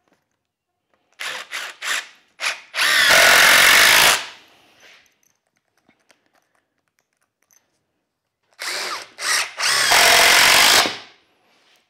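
Cordless impact driver sinking two wood screws into 2x4 softwood without pre-drilling. Each screw starts with a few short trigger bursts, then one steady run of about a second as it is driven home, the second screw about six seconds after the first.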